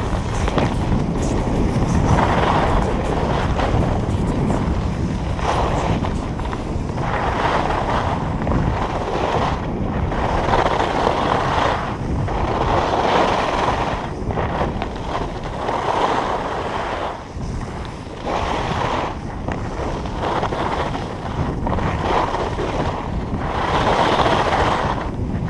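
Skis carving and scraping over packed piste snow, swelling with each turn about every one to two seconds, under steady wind rushing over the camera microphone during a fast descent.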